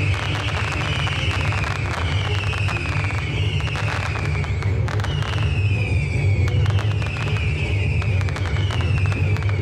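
Fireworks going off: rapid crackling pops from ground-fired sparks and small aerial bursts. A falling whistle recurs roughly once a second.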